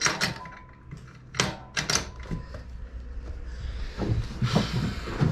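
A few sharp clicks and knocks of metal parts and hardware being handled and fitted, bunched in the first two seconds, then a softer rustle near the end.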